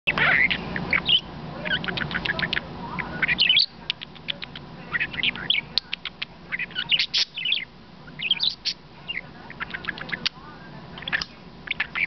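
Pet budgerigar chattering right at the microphone: a quick, continuous run of chirps, clicks and short warbles.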